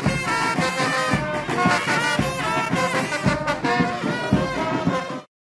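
Brass band music, held horn notes over a low drum beat about once a second, cutting off abruptly near the end.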